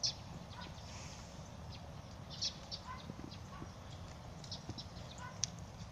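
Quiet outdoor ambience: a steady low rumble, with scattered short high clicks and a few faint brief chirps.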